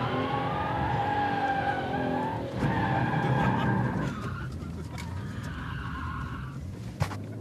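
BMW M3's tyres squealing as the car slides through a corner, heard from inside the cabin over the engine running. The squeal wavers, breaks off about two and a half seconds in, returns briefly and fades out around four seconds in; a single sharp click comes near the end.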